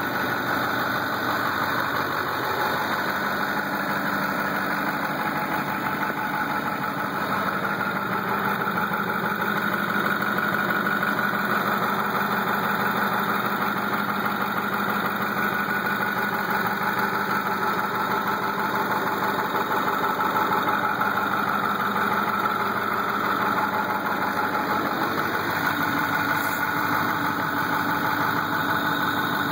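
Ford F-250's Power Stroke turbo-diesel V8 idling steadily.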